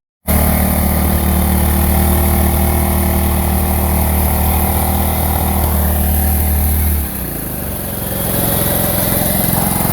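Small rebuilt generator engine running steadily, back to life after its rusted cylinder and water-filled carburetor were cleaned out. About seven seconds in its steady low note drops out and it gets a little quieter, then picks up again near the end.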